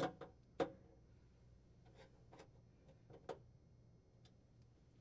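A handful of faint, sharp clicks and taps of screws and metal clamping brackets being handled, the sharpest about half a second in.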